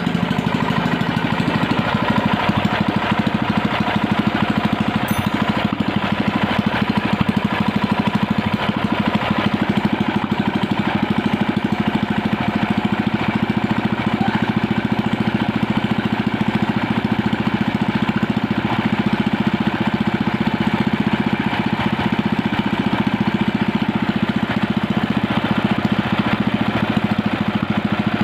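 Small combustion engine running steadily at an even idle, its firing pulses unchanging throughout.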